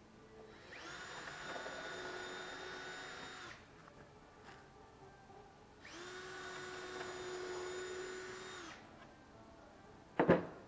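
Cordless drill running in two steady runs of about three seconds each, holding an even pitch, with a pause between them. Near the end, a single sharp knock.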